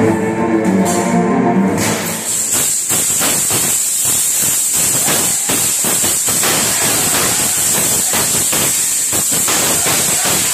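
Background music for about two seconds, then the live sound of urumi whip-sword and shield combat: rapid, irregular strikes and clatters over a steady hiss.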